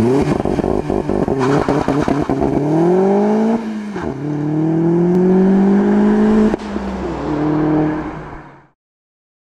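Car engine accelerating hard through the gears: the pitch climbs, drops at a gear change about four seconds in, climbs again, drops at a second shift about six and a half seconds in, then rises once more and stops about a second before the end.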